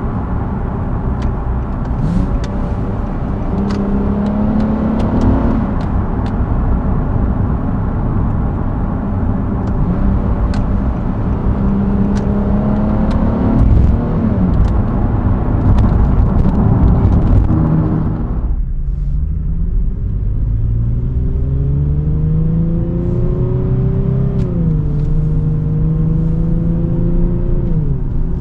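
2019 Nissan 370z Nismo's 3.7-litre V6 under light throttle. Its note climbs and then drops back at each automatic upshift, over steady road and tyre noise. About two-thirds of the way in the road noise drops off suddenly, and the engine pulls up through the gears again, with a shift near the end.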